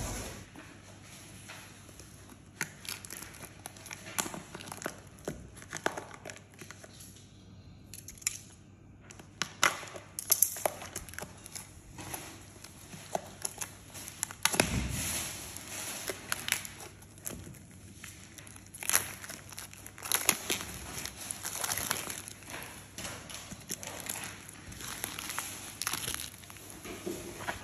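Clear plastic wrapping on a roll of wallpaper crinkling and crackling as it is handled and torn off, in many short irregular crackles and clicks. A dull thump about halfway through.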